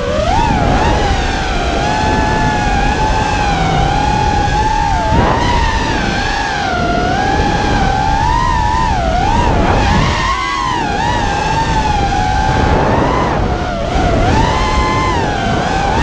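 Brushless motors of a 5-inch FPV quadcopter (2206 2200kv) spinning DAL 5x4x3 tri-blade props, a pitched whine that swoops up and down continually with throttle changes. Heard from the onboard camera, with wind rushing underneath.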